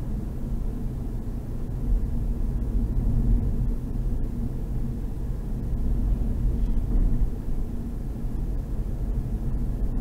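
Hyundai i30 driving at highway speed: a steady low rumble of road and engine noise heard from inside the cabin.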